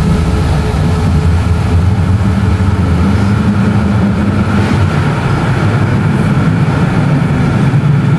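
A GT10NC-DU tram running through the tunnel, heard from inside the car: a steady low rumble of wheels on rail and traction motors.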